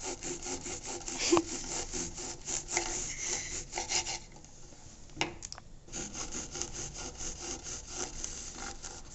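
A blade sawing back and forth through a wine cork in quick repeated scraping strokes, slicing it thin. The strokes stop for a couple of seconds around the middle, with a click or two, then start again.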